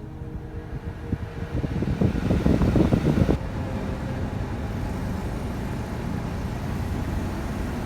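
Car air-conditioning blowers, front and rear, running at full power: a steady rush of air, with a louder rumbling stretch between about one and a half and three and a half seconds in.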